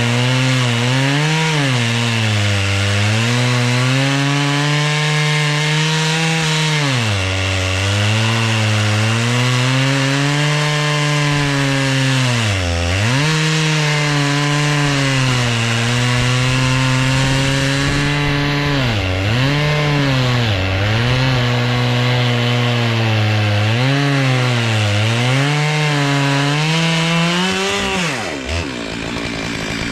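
Stihl MS 661 two-stroke chainsaw on an Alaskan chainsaw mill ripping lengthwise through a log, held at high revs, its pitch sagging and recovering again and again as it bogs under the load of the cut. Near the end the revs drop away as the throttle is let off.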